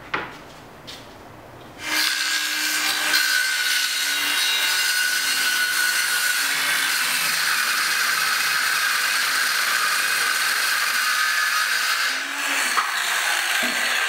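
A knock, then about two seconds in a handheld circular saw starts cutting through a sheet of plywood, running steadily with a high whine. It falters briefly near the end and then keeps cutting.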